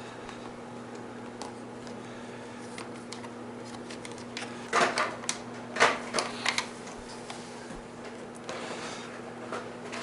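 A plastic bike fender being handled and fitted to the frame: a quick cluster of clicks and knocks about halfway through, then a softer rustle near the end, over a steady low hum.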